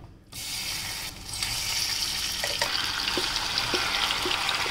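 Marinated paneer tikka mixture (paneer, onion and capsicum in a yogurt-spice paste) sizzling as it hits hot oil in a stainless-steel kadai. The sizzle starts up just after the start and grows louder about a second and a half in, with a few light knocks from about halfway.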